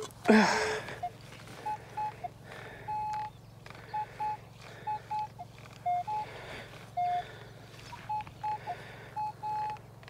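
A steel spade strikes stony ground once, sharply, about a third of a second in. After it comes a string of short, clipped beeps at two slightly different pitches from a Minelab Equinox 800 metal detector, repeating irregularly as the coil passes over the dug hole: a metal target still in the ground.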